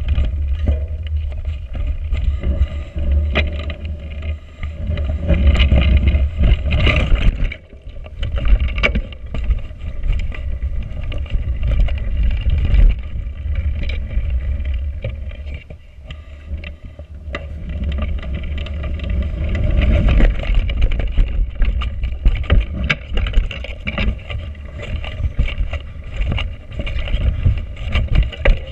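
Wind buffeting a handlebar-mounted action camera's microphone, mixed with the rattle and knocks of a mountain bike on 29-inch Schwalbe Smart Sam tyres rolling over a frozen, rough dirt trail. The noise eases briefly twice.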